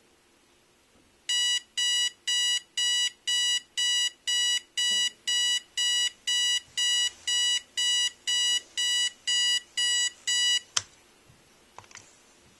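A Sharp digital alarm clock beeping: evenly spaced high beeps, about two a second, for some nine seconds, stopped by a sharp click. A few faint clicks follow near the end.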